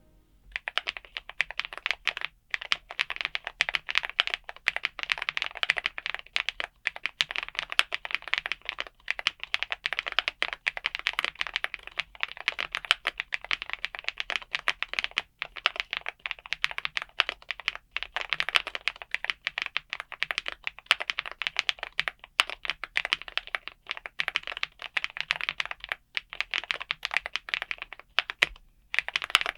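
Fast, continuous typing on a GravaStar Mercury K98 Pro, a gasket-mounted aluminium mechanical keyboard with GravaStar Custom UFO linear switches. The keystrokes are dense and rapid, broken by a few short pauses, the longest near the end.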